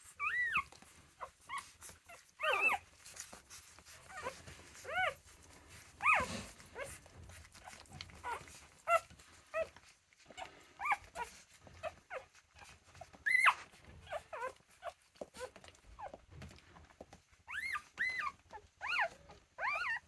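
Four-day-old Lagotto Romagnolo puppies squeaking and whimpering in short high calls, scattered at first and coming thicker, several overlapping, near the end.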